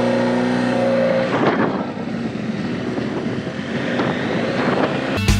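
BMW F800GS parallel-twin motorcycle engine pulling away under throttle, its note rising slightly, then breaking off about a second and a half in at a gear change and carrying on mixed with wind noise as speed builds. Rock music comes in near the end.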